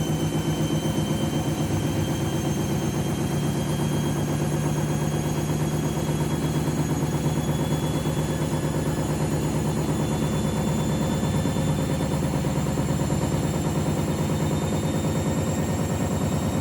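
Washing machine in its final spin, the drum turning at speed with a rapid steady pulsing and a thin motor whine that rises slowly in pitch. The load of two bathrobes is out of balance.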